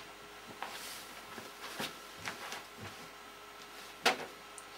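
Faint clicks and rustles over a quiet room background, with one sharper, louder click about four seconds in.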